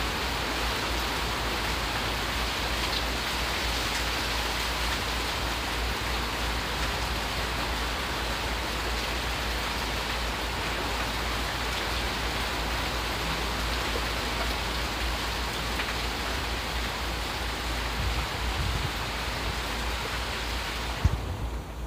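Heavy thunderstorm rain falling steadily: a constant hiss that drops away just before the end.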